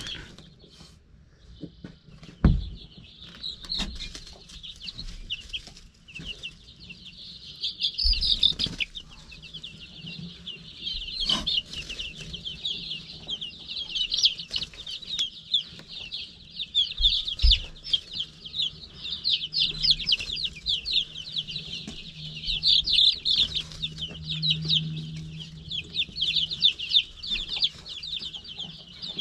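A brood of baby chicks peeping: many rapid, high cheeps overlapping into a continuous chorus that starts about a second and a half in and grows busier. A few sharp knocks sound among them.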